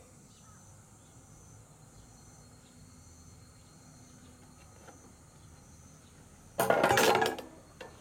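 Faint, steady insect chirring in the background, broken about seven seconds in by a sudden loud clattering rattle lasting under a second.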